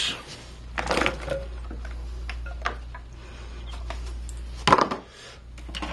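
Scattered knocks and clicks of kitchen handling as onions go into the pot of chicken, with the loudest clatter near the end, over a steady low hum.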